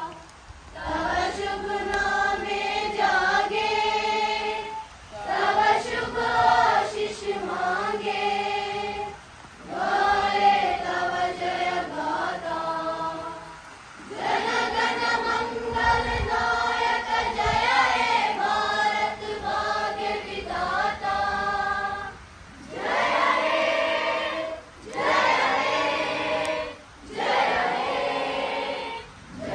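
A group of schoolchildren singing together in unison, in sung phrases of a few seconds each with brief pauses between them.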